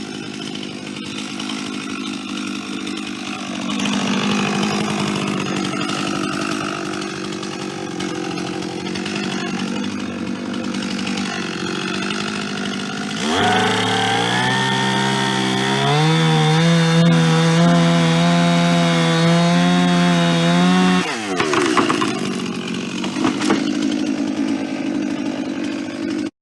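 Chainsaw engine running at lower revs, then revving up a little past halfway, holding high revs for several seconds, and dropping back down.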